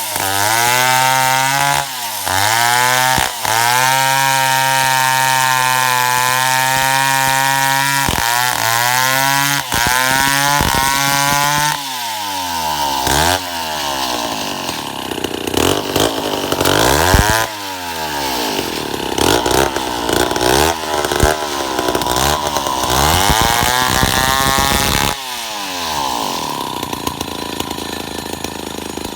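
Stihl chainsaw sawing eucalyptus wood. For the first half the engine runs at steady high revs with a few brief dips. From about twelve seconds in, the pitch swings up and down repeatedly and the sound turns rougher as the revs rise and fall in the cut.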